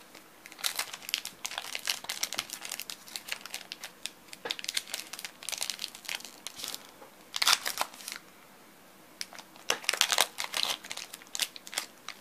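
Crinkling and crackling of a Pokémon booster pack's foil wrapper as it is torn open and handled to get the cards out, in irregular bursts with a brief lull about two-thirds of the way through.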